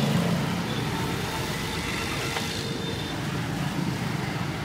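Street traffic noise: motor vehicles running past with a steady road rumble and a low engine hum.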